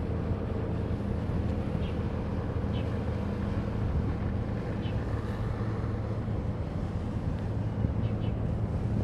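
Steady low drone of boat and ship engines across harbour water, with wind rumbling on the microphone and a few faint high chirps.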